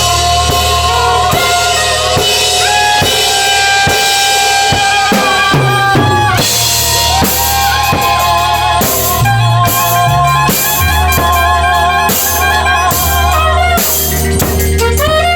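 Live band improvising: a drum kit plays steady kick and snare strokes under a deep bass line and held, shifting melodic notes.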